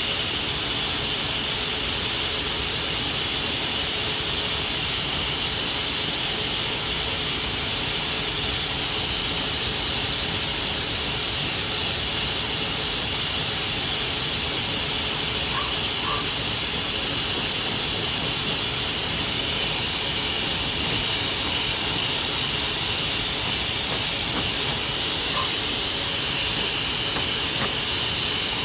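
A pet blow dryer running steadily, a loud even hiss of blown air.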